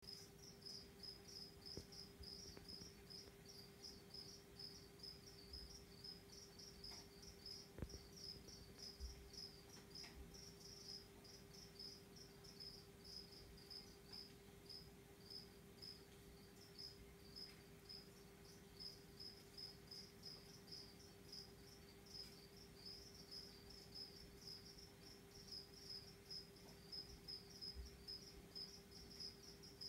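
Crickets chirping faintly, several high chirps a second in a steady run, over a steady low hum.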